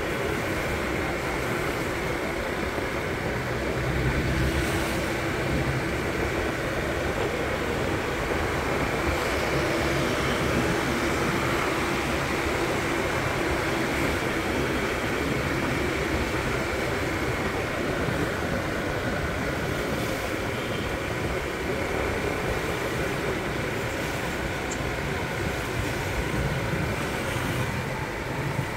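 Motor scooter riding along at a steady speed: its engine hum mixed with wind and road noise, with other traffic passing.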